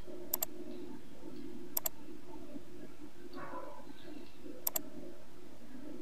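Computer mouse button clicked three times, each a quick pair of sharp clicks, over a steady low hum.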